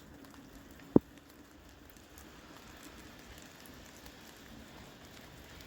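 Steady rain falling, an even hiss, with one sharp click about a second in.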